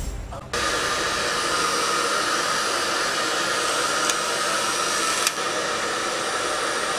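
Hair dryer switched on about half a second in and blowing steadily, drying a freshly weathered scale model. Two brief clicks come near the middle.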